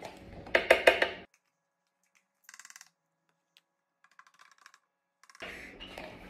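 A quick run of about five sharp plastic clicks about a second in, from a small plastic yogurt cup being tapped and squeezed to empty it into the blender. A couple of short runs of faint rapid ticks follow.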